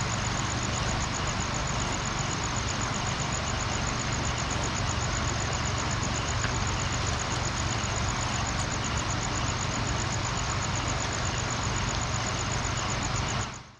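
Steady rush of river water at night, with a rapid, even high-pitched chirping of night insects over it and a low steady hum underneath; it all fades out near the end.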